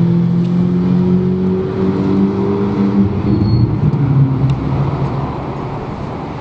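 Lamborghini Aventador's 6.5-litre V12 pulling away under light acceleration, its note rising slowly for about three seconds, then dropping with an upshift and fading as the car moves off.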